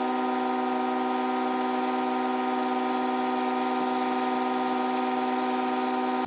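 Pressure-washing equipment running: a steady machine whine made of several even tones with a light hiss over it, holding the same pitch and level throughout.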